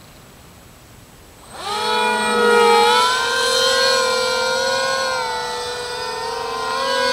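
Three brushless electric motors and propellers of a foam RC Su-30 model, throttled back to a faint hiss at first. About a second and a half in they spool up with a rising pitch into a steady, air-raid-siren-like wail that wavers slightly in pitch.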